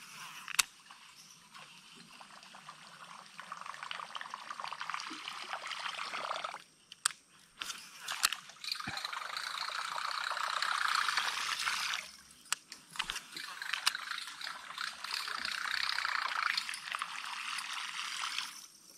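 Baitcasting reel (Daiwa Tatula) being cranked to retrieve a surface lure, a steady whirring in three stretches of about five seconds each. Sharp clicks sound between the retrieves.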